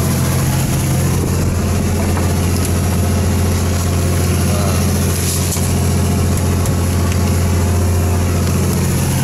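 Fishing boat's engine running steadily, a deep even drone with no change in speed.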